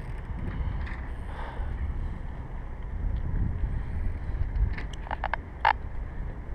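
Wind rumbling on the microphone, with a quick run of sharp clicks about three-quarters through, the last one the loudest.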